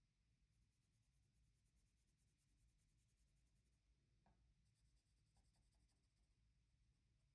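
Very faint pencil scratching on paper, two short spells of quick strokes with a brief pause between them, barely above silence.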